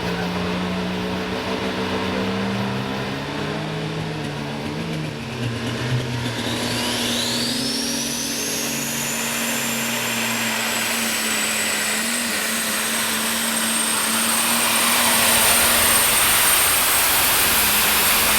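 Modified pulling tractor's turbocharged diesel engine running. About six seconds in, a high turbo whistle rises steeply in pitch and then holds high. The engine grows louder near the end.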